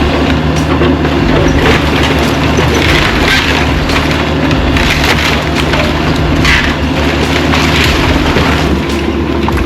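Caterpillar 305E2 mini excavator's diesel engine running steadily while the machine crushes and splinters wooden demolition debris, with several loud cracks and crunches.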